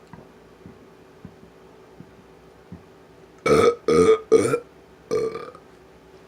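A person burping loudly four times: three burps in quick succession about halfway in, then a fourth a moment later, after a few faint clicks.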